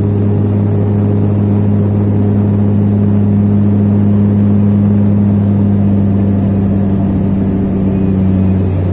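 Airliner engine drone inside the passenger cabin during the climb after takeoff: a loud, steady hum with a strong low tone. The tone dips slightly lower near the end.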